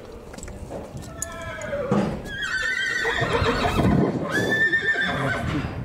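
A horse whinnying twice in long, wavering calls. The first starts about a second in and breaks into a higher part halfway through. The second starts about four seconds in.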